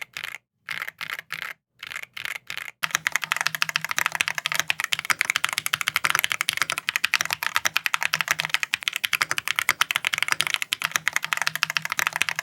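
Mechanical keyboard typing on a Keychron Ultra board: short runs of keystrokes with brief silences for about the first three seconds, then a sudden switch to fast, continuous typing, a dense stream of clicks and bottom-outs.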